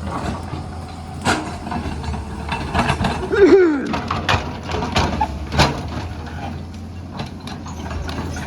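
Excavator working: its engine runs steadily underneath a scatter of sharp knocks and clanks. A brief wavering, falling tone comes about three and a half seconds in.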